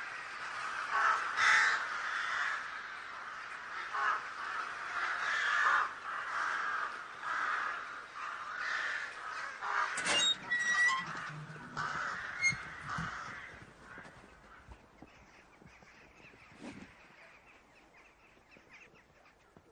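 A flock of crows cawing, many overlapping calls that fade away after about fourteen seconds.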